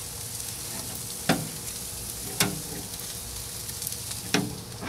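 Steaks and shrimp sizzling on a grill grate over hot coals, a steady hiss broken by three sharp clicks.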